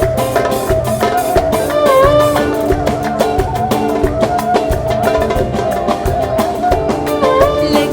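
Instrumental introduction to an Egyptian pop song, with a steady beat under a melody line, before any singing.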